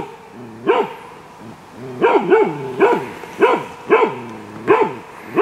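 Halvstövare hound barking at a moose in an enclosure, giving a bay bark as a moose dog does. One bark, then after a pause a steady run of barks, about two a second.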